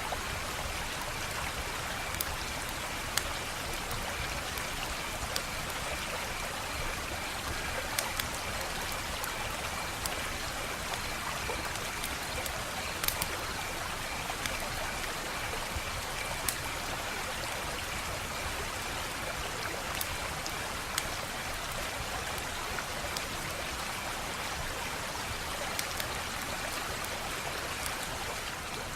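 Wood fire crackling: a steady hiss with scattered sharp pops and snaps at irregular intervals, every second or few seconds.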